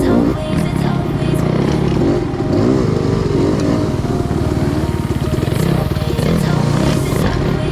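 Yamaha YZ250X two-stroke single-cylinder dirt bike engine revving up and down repeatedly under throttle while riding off-road.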